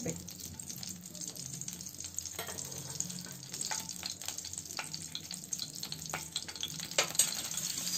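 Two slit green chillies frying in hot oil in a kadai: a steady sizzling hiss with scattered crackles and pops, the loudest about seven seconds in.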